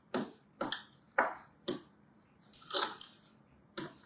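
A spatula folding drained cherries through whipped cream in a glass bowl: about six short, sharp strokes, the first four about half a second apart, then two more a second apart.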